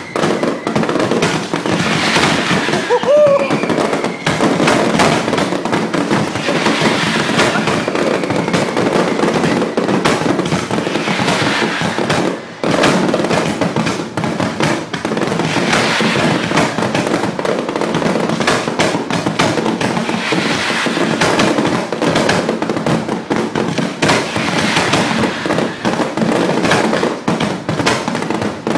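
Valencian pyrotechnic display going off at ground level: a dense, unbroken barrage of rapid firecracker bangs and crackling, with a short rising whistle about three seconds in.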